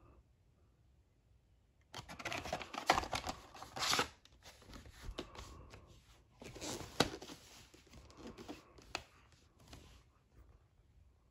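VHS tapes being handled: the cassette is slid into its cardboard sleeve and the cases are set down, with rustling and scraping and a few sharp clicks. It starts about two seconds in and stops near the end.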